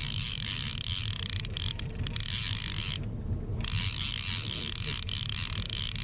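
Okuma Convector line-counter trolling reel being cranked in against a hooked salmon, its gears running steadily, with a short pause about three seconds in. A low hum from the boat's engine runs underneath.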